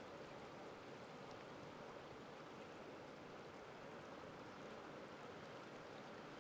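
Creek water flowing, a faint steady rush that does not change.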